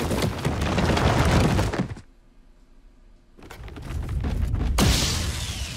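Cartoon crash effect of a heap of pizza boxes tumbling down, lasting about two seconds. After a short lull, a second rushing noise swells up and fades.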